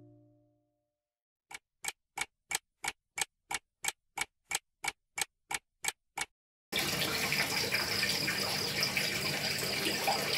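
A guitar chord fades out. After a pause a clock ticks rapidly, about fifteen ticks at roughly three a second. Then a steady rushing hiss sets in, like running water.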